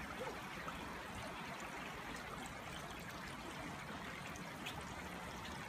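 Creek water trickling and flowing steadily.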